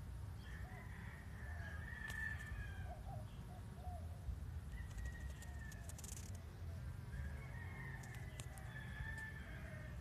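Faint calls of birds in the background: drawn-out high calls lasting about a second each, and a few short lower notes in a quick run, over a steady low outdoor rumble with a few faint clicks.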